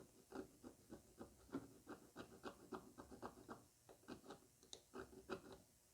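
Faint, quick scraping strokes, about four a second, of a small hand tool filing the brass tongue of a harmonium reed. The reed plays sharp, and the scraping lowers its pitch.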